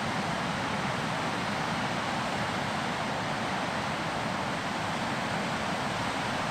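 Steady ocean surf on a beach: an even, unbroken wash of breaking waves with no distinct bird calls standing out.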